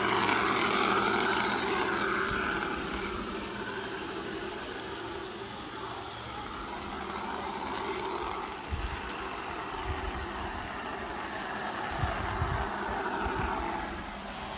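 Garden-scale model train running along its outdoor track close by, a steady rolling rumble that is louder for the first couple of seconds and then fainter as it moves away. A few low thumps come later.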